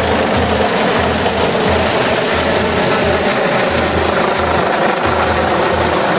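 Helicopter flying overhead and climbing away, a steady rotor and engine drone with an uneven low rumble underneath.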